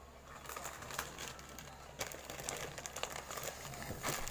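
Plastic instant-noodle packets crinkling and rustling as they are handled and shifted, with irregular crackles.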